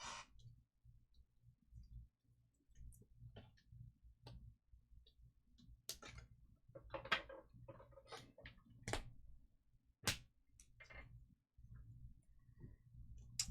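Faint scattered clicks and short rustles of trading cards being handled and sorted on a table, over a low steady hum.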